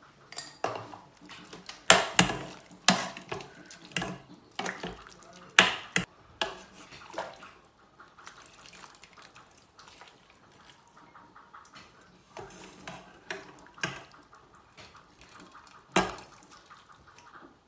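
A spoon scooping stew out of an electric cooker's inner pot into a bowl: repeated clinks and scrapes against the pot and bowl, with broth splashing and dripping. The knocks come thick for the first several seconds, then sparser, with one sharp knock near the end.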